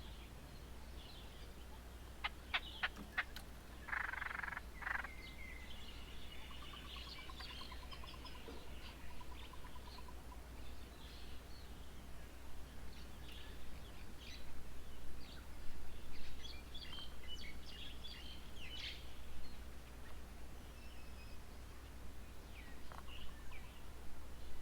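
Assorted birds calling and chirping, with a few sharp clicks about two seconds in, a short harsh call around four seconds, and a rapid dry trill a little later. A steady low hum runs underneath.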